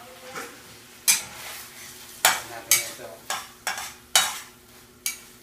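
Food frying in butter in a frying pan, a utensil stirring and scraping it in about seven quick, irregular strokes that start about a second in, over a light sizzle.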